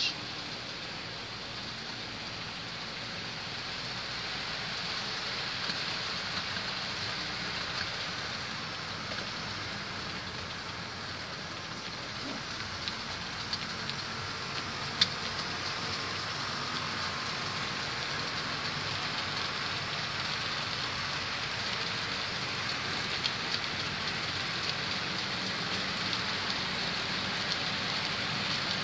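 Model train of three GP30 diesel locomotives and coal hopper cars rolling along the track: a steady hissing rattle of metal wheels on rail and motor whir that grows louder as the train comes past, with a few sharp clicks.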